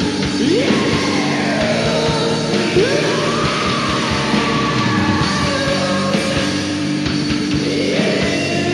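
Rock band recording: a dense, steady wall of held keyboard and guitar tones over bass and drums, with a few swooping pitch glides rising and falling through it.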